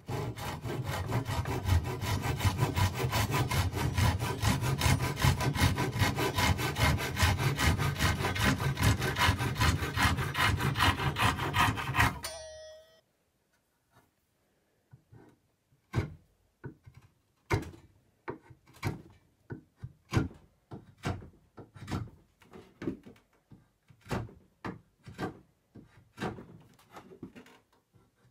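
A fine-toothed hand saw cutting across a turned wooden chair post in quick, even strokes, ending with a short ring about twelve seconds in. After a brief pause, a spokeshave shaves the post in a steady run of short strokes.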